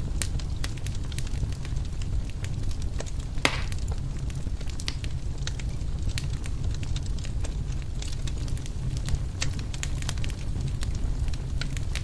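Wood fire crackling in a fireplace: scattered sharp pops and snaps over a steady low rumble, with one louder pop about three and a half seconds in.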